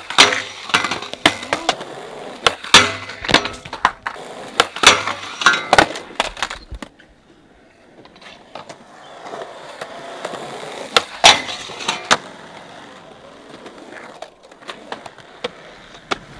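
Skateboards on concrete: wheels rolling with a steady rumble, broken by sharp clacks and slaps of boards popping, landing and striking the ground. The clacks come in a quick series over the first six seconds, and one more loud smack comes about eleven seconds in.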